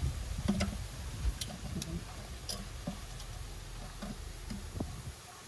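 Scattered light clicks and knocks from handling a small solar panel while positioning it against a wall, over a low rumble that drops away near the end.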